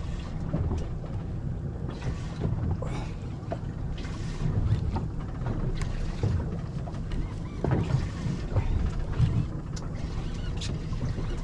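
Wind and water on a small boat at sea: a steady low rumble of wind on the microphone and water against the hull, with a few scattered light clicks and knocks.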